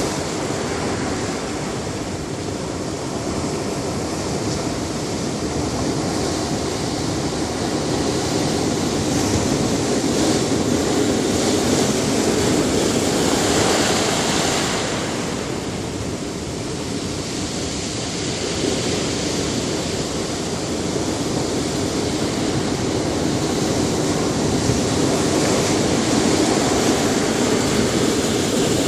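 Ocean surf: waves breaking and washing on a beach, a steady rush that swells about halfway through and again near the end.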